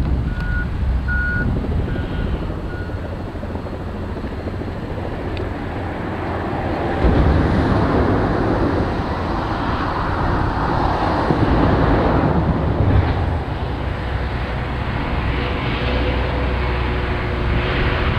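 Diesel engines of heavy mine equipment: a Caterpillar 16H motor grader working toward the listener, with a Volvo articulated hauler getting louder as it passes in the middle and a large haul truck's engine coming in near the end. A backup alarm beeps in the first few seconds.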